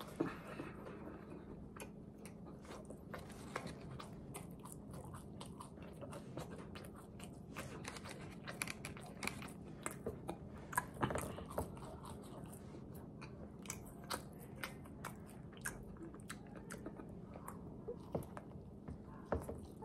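Close-up chewing of a crispy fried chicken sandwich: crunching bites with many short clicks, busiest in the middle.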